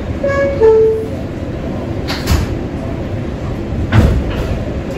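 Kawasaki R188 subway car's two-note door chime, a higher note falling to a lower one. The sliding doors then close, with a heavy thud about two seconds in and another about four seconds in, over the steady hum of the stopped train.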